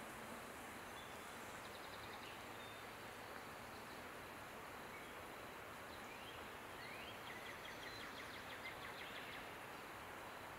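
Faint, steady outdoor background noise with distant bird calls: a short trill about two seconds in, then two quick rising notes and a longer rapid trill from about seven seconds in.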